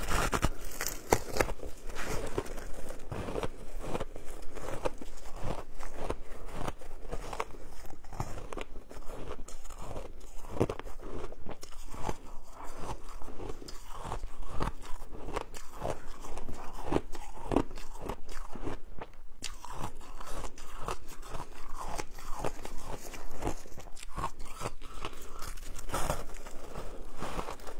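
Close-up crunching and chewing of packed shaved ice: a dense run of crisp crunches as lumps of it are bitten off and chewed.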